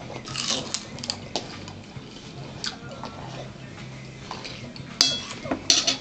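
Eating sounds: chewing and mouth noises with spoons clicking against bowls, including a sharp clink about five seconds in.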